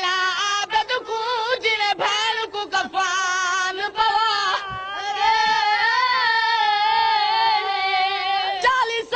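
Man and boys singing a mourning lament together on one wavering melody, ending on a long held note over the last few seconds.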